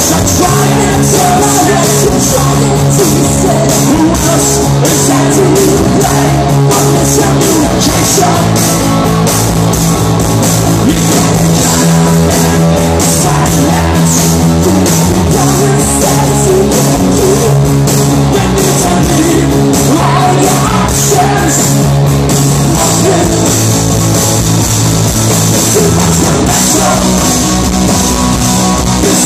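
Punk rock band playing loud through a venue PA: distorted electric guitars, bass, drum kit and sung vocals, heard from within the crowd.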